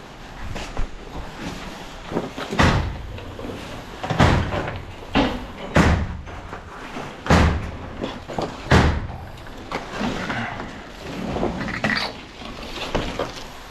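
A series of heavy knocks and bangs, about six loud ones at irregular intervals, with quieter clattering and scraping between them.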